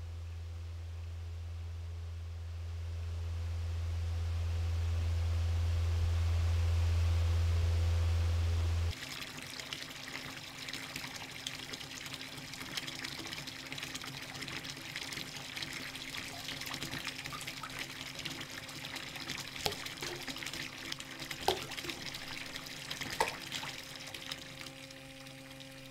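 A low steady hum swells for about nine seconds and cuts off suddenly. Then a bath mixer tap runs a stream of water into a filling bathtub, a steady splashing with a few small drips.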